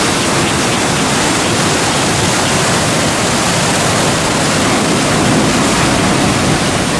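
Heavy ocean surf breaking and foaming over rocks, a loud, steady rush of water.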